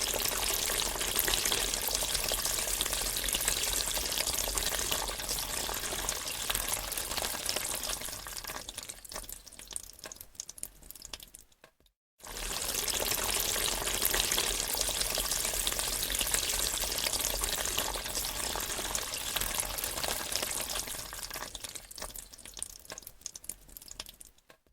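Waterfall rushing, a steady roar of falling water. It comes as two stretches, each fading toward its end, with a brief silent break about 12 seconds in.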